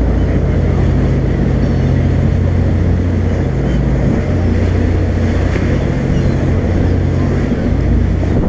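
Charter boat's engine running steadily underway: a loud, low, even drone under the rush of water and wind.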